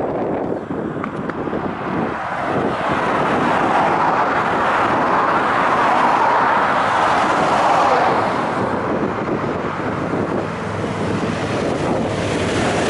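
Road traffic: a van drives past with tyre and road noise that swells to its loudest about halfway through. Near the end, the engines of a large group of cruiser motorcycles riding together come in as they approach.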